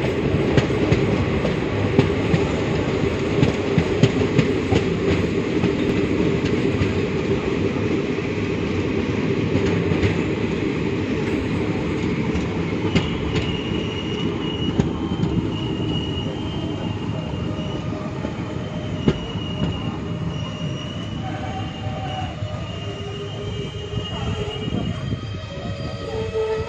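Passenger train running on the rails, with wheels clattering over the rail joints, busiest in the first half. In the second half thin high wheel squeals come and go.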